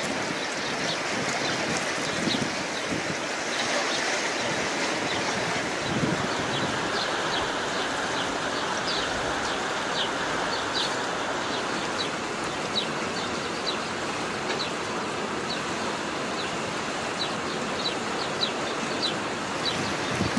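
Steady rush of flowing floodwater, with short high chirps scattered through it.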